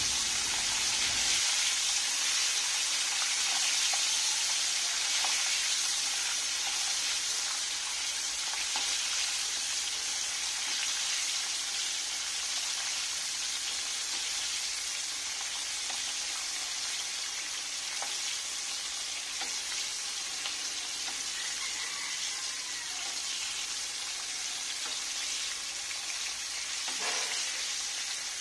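Whole red tilapia deep-frying in a pan of hot oil: a steady, high crackling sizzle.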